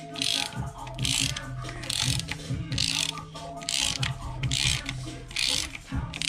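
Socket ratchet clicking in repeated strokes, about one a second, as a bolt on a transmission case is run in and tightened.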